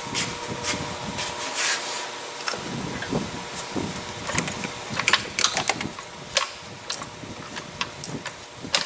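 Irregular clicks and light knocks of plastic hoses, clips and connectors being handled and pulled loose in a car's engine bay, over a steady background hum.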